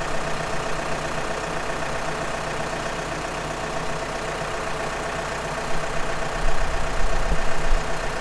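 Tractor engine idling steadily, with a stronger low rumble from about six seconds in.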